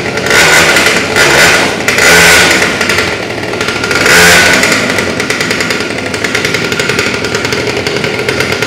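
Small 60 cc petrol engine of a kids' mini pocket bike, revved in four short blips of the throttle over the first half, then running at a fast, steady idle.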